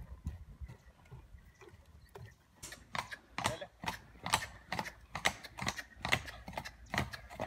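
A horse's hoofbeats as it trots on a hard path, collected and high-stepping. The strikes are crisp and even, about two a second, and become clear about two and a half seconds in after a softer start.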